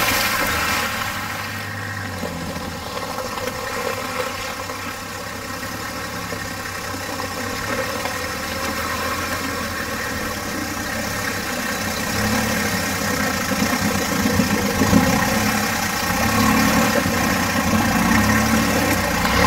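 Toyota LandCruiser 4WD engine running steadily at low revs as the wagon crawls through mud and water, growing a little louder near the end.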